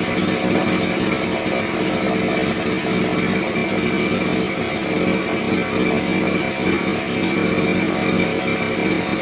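Small brush cutter engine running steadily at constant speed, driving a homemade goat-manure grinder, with a steady high whine over the engine note.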